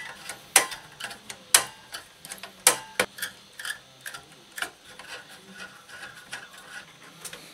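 Screwdriver working the screws of a desktop PC's CPU heatsink: a handful of sharp metallic clicks in the first five seconds, with fainter ticking and rubbing between them.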